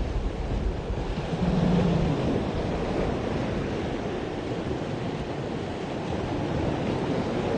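Baltic Sea surf washing onto the shore in a continuous rush, swelling louder about two seconds in.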